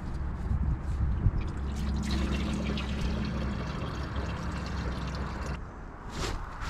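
Engine oil dribbling and trickling from the oil filter of a Kioti DK4510 tractor into a plastic cup held beneath it.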